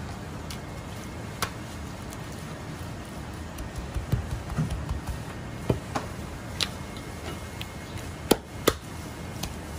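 Chinese cleaver knocking on a plastic cutting board while chicken thighs are trimmed: scattered sharp taps, the two loudest close together near the end, over a steady low hum.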